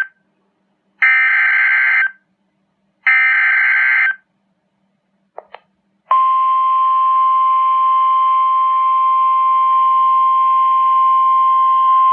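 NOAA Weather Radio emergency alert played through a Midland WR-120 weather radio's speaker. First come two rasping bursts of SAME header data, each about a second long and a second apart. Then a brief double click, and from about six seconds in the steady 1050 Hz warning alarm tone, which signals that a warning message is about to follow.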